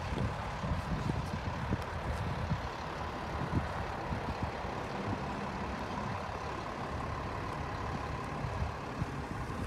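Penny board's small plastic wheels rolling over pavement: a steady, unbroken low rumble.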